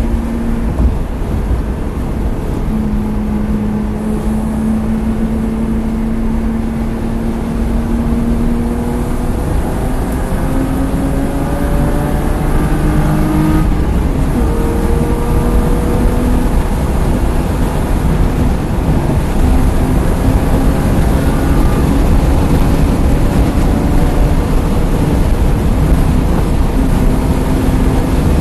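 BMW E36 engine heard from inside the car, accelerating on track with its pitch climbing steadily. About halfway through the pitch drops at an upshift, then climbs again. Heavy road and wind noise runs underneath.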